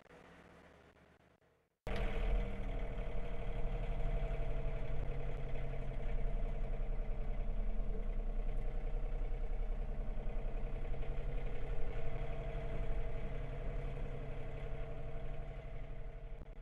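John Deere compact tractor's diesel engine running steadily, cutting in abruptly about two seconds in and fading out near the end.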